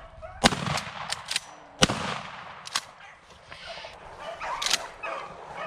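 Two shotgun shots about a second and a half apart, fired at a rabbit running ahead of beagles; both shots miss.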